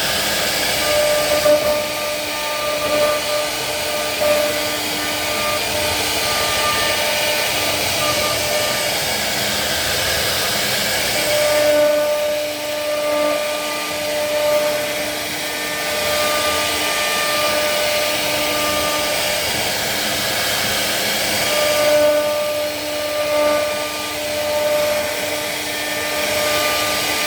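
CNC wood router running: a steady high whine from the spindle over a continuous cutting hiss as it carves wood. The whining tones fade and return in long stretches.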